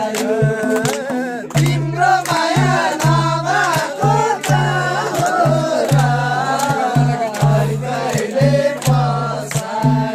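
Nepali folk song sung by men, accompanied by a madal barrel drum and rhythmic hand clapping.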